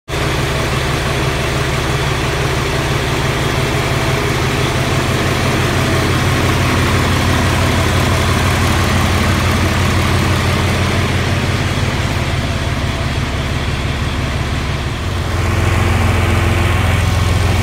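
John Deere 4020's six-cylinder diesel engine idling steadily; about fifteen seconds in its low note shifts and grows louder.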